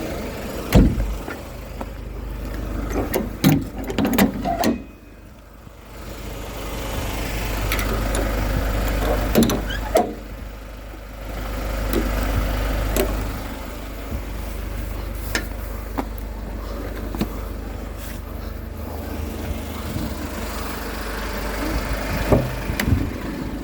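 Scattered knocks and thuds of firewood being handled and set down during unloading, over a steady low rumble like a vehicle's engine running.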